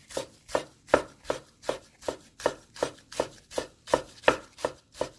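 Chef's knife slicing stacked perilla leaves into fine shreds on a wooden cutting board. The blade knocks on the board in an even rhythm of about three cuts a second.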